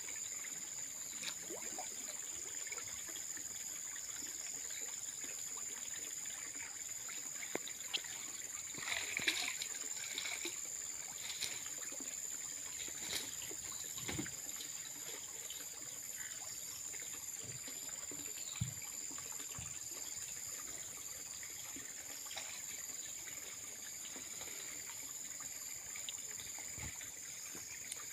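Muddy pond water sloshing and splashing as a person wades waist-deep and works a landing net, with a cluster of louder splashes about nine seconds in. A steady high-pitched whine sits underneath.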